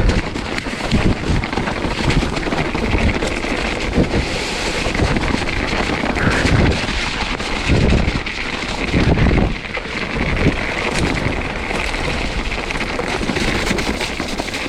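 Wind rushing over the microphone as a mountain bike descends a wet, muddy trail, with irregular knocks and rattles from the bike over rough ground.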